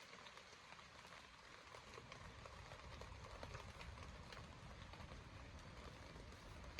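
Faint light rain: a soft, even hiss with scattered ticks of drops over a low rumble.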